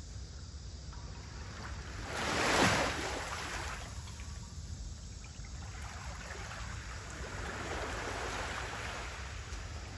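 Small sea waves lapping on the shore, one wash swelling up and falling away about two and a half seconds in and a softer, longer one near the end, over a steady low rumble.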